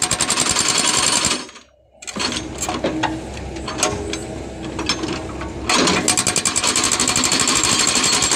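Hydraulic breaker on a backhoe hammering fast into hard adobe rock. It stops about a second and a half in, leaving the machine's engine and some clanking, then starts hammering again a little past the middle.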